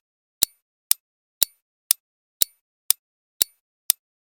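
Countdown-timer clock-tick sound effect ticking steadily, about two sharp ticks a second, marking the seconds left to answer a quiz question.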